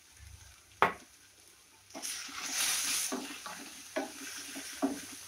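Wooden spatula stirring chopped lettuce greens frying in mustard oil over a high flame: a sizzle starts about two seconds in, then short scraping strokes about twice a second. A single sharp knock just before one second in.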